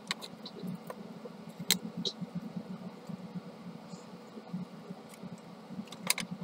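Light clicks and taps of plastic printer drum-unit parts being handled and fitted together by hand, a few scattered clicks with a louder pair about six seconds in, over a faint low steady hum.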